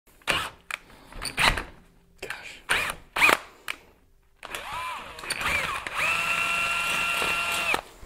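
Power drill with a twist bit drilling through a mild steel bar clamped in a bench vise. First comes a string of short trigger blips, the motor whine rising and falling with each. Then the motor spins up and runs as a steady whine from about six seconds in, stopping just before the end.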